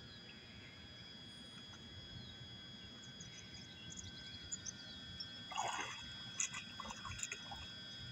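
A dog swimming and then wading out into shallow pond water, with a cluster of short splashes and drips about five and a half to seven and a half seconds in as it reaches the edge.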